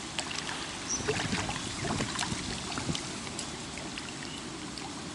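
Steady open-air background hiss with scattered light clicks and knocks.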